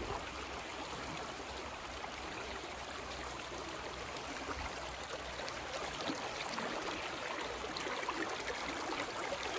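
Steady rush of a flowing creek, with small scattered ticks of water.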